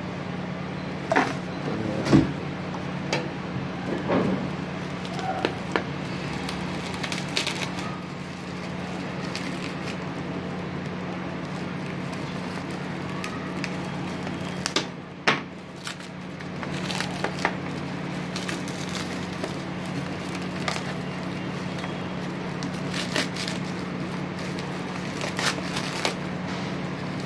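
Bubble wrap and plastic packaging crinkling and crackling as they are handled and pulled open, with a few sharper cracks, the loudest about two seconds in and about halfway through. A steady low hum runs underneath.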